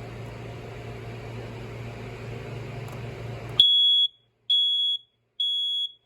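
Kidde i9050 ionization smoke alarm sounding its test: three loud, high-pitched beeps of about half a second each, roughly a second apart, in the temporal-3 fire-alarm pattern. The beeps start about three and a half seconds in, after a steady low hum and hiss.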